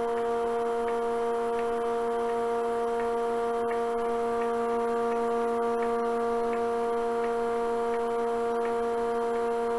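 Wood lathe and its vacuum chuck running, a steady, unchanging hum with a few faint ticks.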